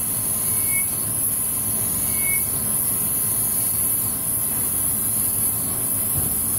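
Cam grinding machine running steadily as its wheel grinds a lobe of a hard-steel billet 5.9 Cummins camshaft under a flood of coolant oil: a constant high grinding hiss over a machine rumble.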